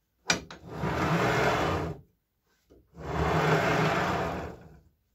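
Steel carriage plate rolled along steel lathe rails on linear bearings, with a sharp click just before the first of two runs, each lasting about one and a half to two seconds.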